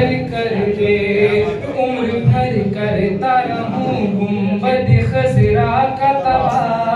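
A man singing a naat, a devotional poem, unaccompanied into a microphone, holding and bending his notes through long melodic phrases.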